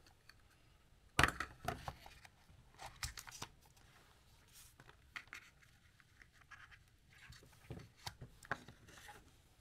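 Small cardboard box being unpacked by hand: the inner tray sliding out and packaging rustling and scraping, with light knocks, the loudest about a second in.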